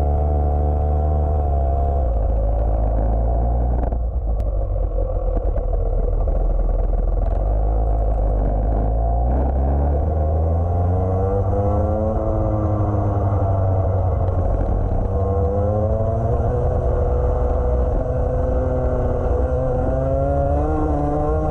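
Rotax 125 Max Evo single-cylinder two-stroke kart engine heard from on board the kart, running fairly steadily at low speed at first. About halfway through, the revs start climbing and dropping again and again as the kart accelerates onto the track.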